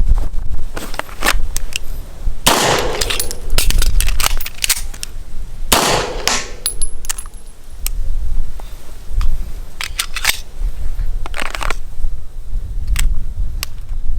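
Gunfire at a shooting range: two loud reports with a long echoing tail, about two and a half and six seconds in, among many shorter sharp cracks and clicks.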